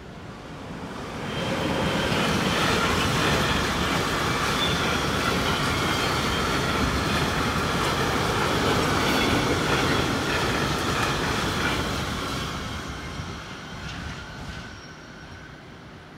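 Tank wagons of a freight train rolling past over a level crossing, the steady rumble and clatter of wheels on rail. It swells up about two seconds in, holds, and fades away from about twelve seconds in as the last wagons clear the crossing.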